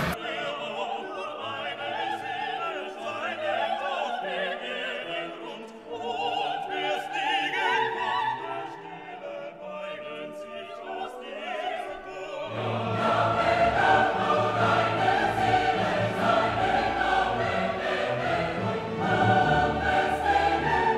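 Classical-style music with operatic choir singing, sparse and light at first, then fuller with a bass line entering about halfway through.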